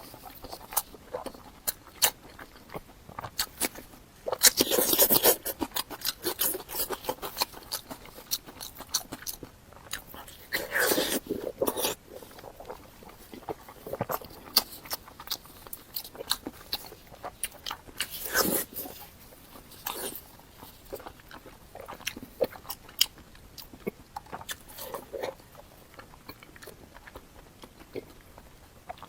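A person eating close to the microphone: chewing and biting with many small wet mouth clicks, and a few louder bursts.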